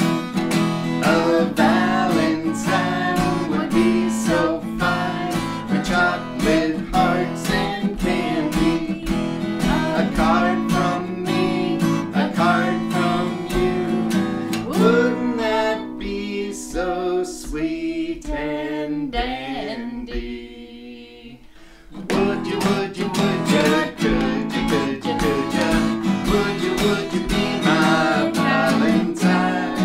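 Acoustic guitar strummed in a steady rhythm under a woman and a man singing a song together. About halfway through, the strumming stops and a chord rings out and fades under the voices to a brief hush, then the strumming starts up again.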